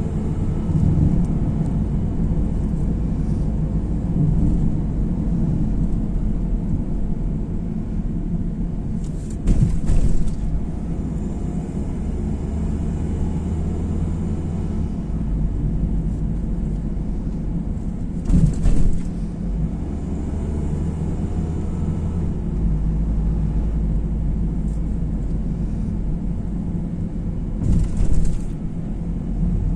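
Steady road and engine rumble inside a moving car's cabin. Three brief louder bursts of noise come about 9, 18 and 28 seconds in.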